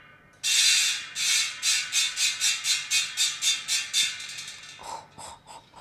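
Bicycle rear hub freehub ratcheting as the wheel coasts. It starts as a loud buzz about half a second in, then breaks into even pulses about three a second that slow and fade as the wheel winds down.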